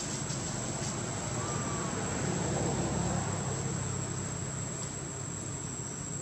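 Outdoor ambience: a steady high-pitched insect drone over a low rumble that swells and fades in the middle, with one faint short chirp about a second and a half in.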